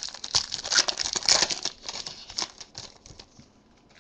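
Foil wrapper of a Topps Strata trading-card pack being torn open and crinkled: a dense crackle of small clicks that dies away after about two and a half seconds.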